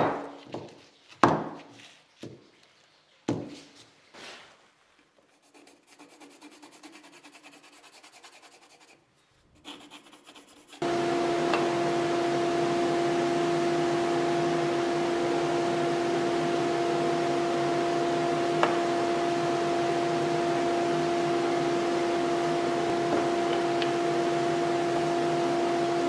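A few knocks and some light rubbing as a flat steel bar and plywood blocks are set down and handled on a rubber bench mat. About eleven seconds in, a steady motor drone starts abruptly, with a constant two-pitch hum, and runs on with a few faint clicks over it.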